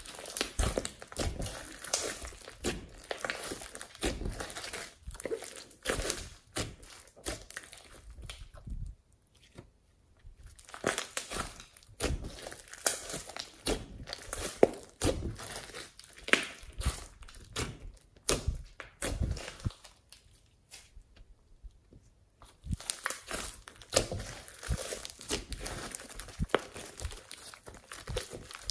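Pink slime being squeezed and kneaded by hand: a dense run of small clicks and crackles, pausing briefly about nine and again about twenty-one seconds in.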